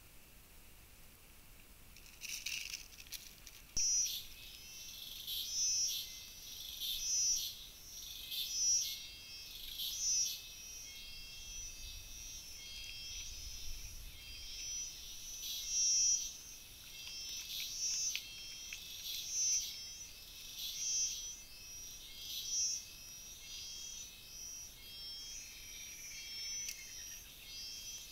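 A high-pitched animal call from the surrounding forest, starting about two seconds in and repeating roughly every second and a half, over a faint outdoor background.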